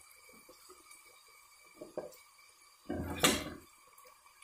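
A steel ladle knocking and scraping against the inside of a pressure cooker as onions and chilli powder are stirred in hot oil. There is a short knock about two seconds in and a louder, longer scrape about three seconds in.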